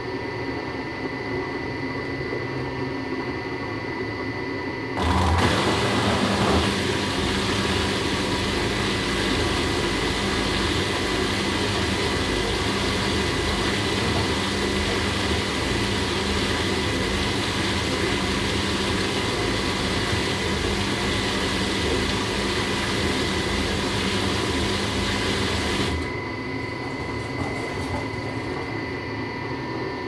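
Household washing machine running with a steady hum. About five seconds in it gets louder, with added hiss and a steady low drone, and keeps this up for about twenty seconds before dropping back to the quieter hum.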